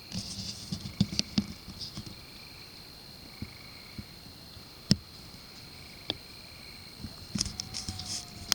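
Night insect chorus: a steady high buzz with a softer call pulsing about once a second. Clusters of sharp clicks and rustles come in the first two seconds and again near the end, with single clicks in between.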